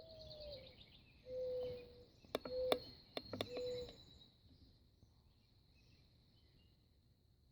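A dove cooing: a first note that slides down, then a long note and two shorter ones, low and soft, over a steady high insect drone. A few sharp clicks fall among the coos, the loudest about two and a half seconds in.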